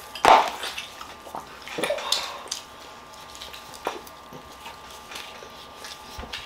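Snow crab leg shells cracking and snapping as they are broken open by hand for eating: one loud crack just after the start, then a few smaller snaps and clicks.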